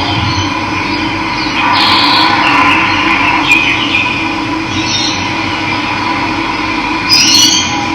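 Steady rush of running water with birds calling over it, a few chirping calls about two seconds in and again near the end.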